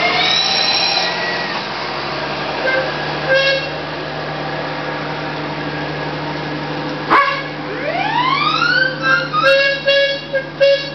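Several steam traction engine whistles blowing together in a chorus over a steady hiss, with held notes at different pitches. About eight seconds in, one whistle slides upward in pitch as it opens, and short toots follow near the end.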